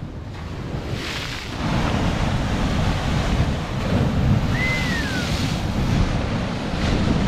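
Ocean swell surging and breaking against rock ledges and sloshing through the gaps, with wind buffeting the microphone. The surge swells up about a second and a half in. A short falling whistle is heard near the middle.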